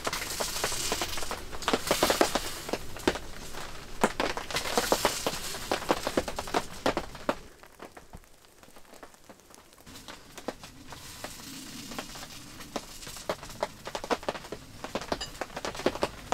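Irregular crackling and popping of a wood fire burning in a stove, dropping away for a couple of seconds about halfway through before picking up again.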